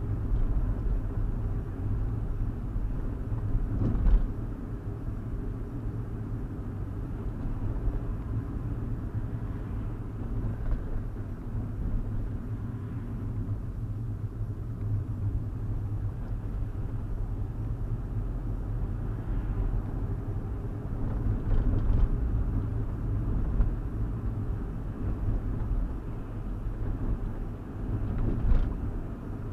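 Steady low road rumble from inside a 2015 Hyundai i20 on the move: engine and tyre noise heard in the cabin, with a few brief knocks along the way.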